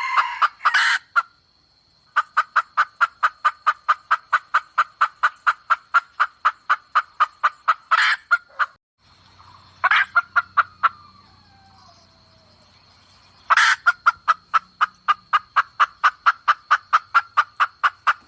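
Junglefowl hen calling in long, even runs of rapid clucks, about five a second, broken by short pauses and a few louder notes: a bait hen's call for luring wild cocks. A steady high whine runs underneath.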